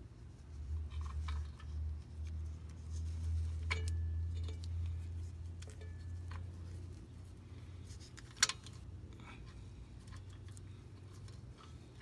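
Small metal clicks and light scraping as the parking-brake shoe adjuster is handled and worked into place between the drum brake shoes, with one sharp click about eight seconds in. A low rumble runs under the first half.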